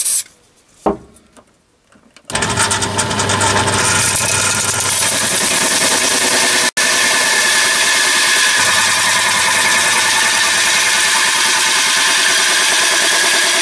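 Bench drill switching on about two seconds in and running at its slowest speed, 620 RPM, while a 30 mm titanium-coated HSS hole saw cuts into thin mild steel sheet: a loud, steady cutting noise. It drops out for an instant about halfway through.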